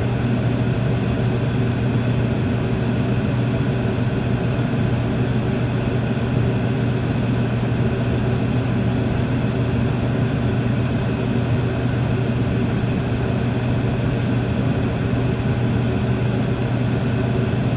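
Room tone: a steady, unchanging low hum with an even hiss above it and no separate events.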